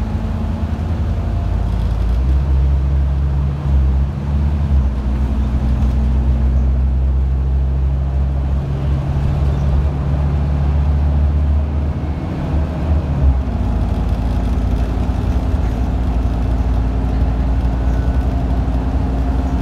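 Inside a Scania double-decker bus on the move: the engine's low, steady running note over road noise. The engine note changes about two seconds in and again near thirteen seconds.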